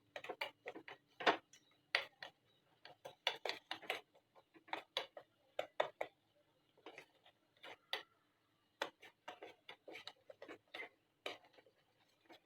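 A pan of sugar syrup melting on the stove gives a run of sharp, irregular clicks and ticks, a few a second, with short pauses between them.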